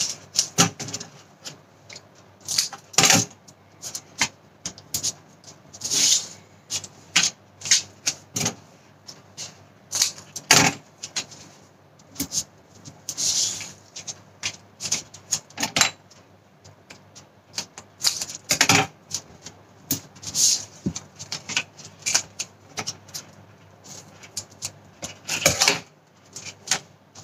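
Double-sided tape and small paper envelopes being handled: irregular clicks, taps and paper crinkles, with a few short rasps as tape is pulled and its backing peeled off.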